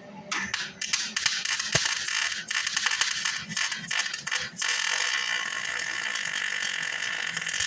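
Welding arc from a small Hobart wire-feed (MIG) welder laying metal into a wide gap. It crackles and pops unevenly for the first few seconds, then settles into a steadier hiss.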